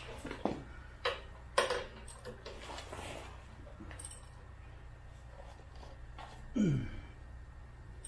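Small steel bolts, nuts and washers clinking as they are handled and fitted at a tractor's rear hitch mount, with a few sharp metal clicks in the first two seconds, the loudest about one and a half seconds in. A short sound falling in pitch about six and a half seconds in.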